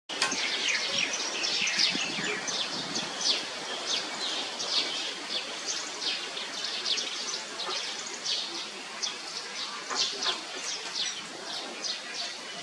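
Many small birds chirping, short high chirps several a second.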